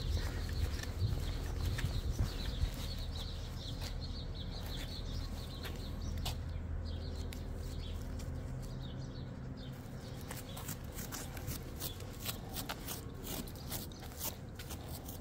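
Outdoor street ambience: a low rumble that fades out about halfway through, then a run of light clicks and small rattles.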